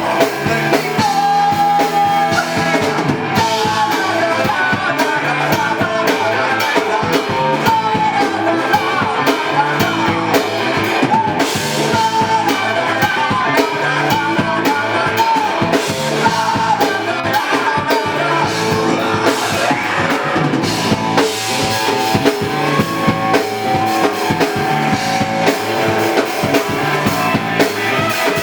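Live rock band playing a song: a drum kit keeps a steady beat under electric guitars and a sung melody.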